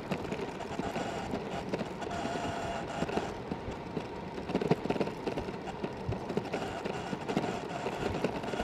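Sur Ron X electric dirt bike riding along a rough dirt road: steady rolling noise from the tyres and drivetrain, with scattered knocks and rattles over the bumps and a faint whine for about a second.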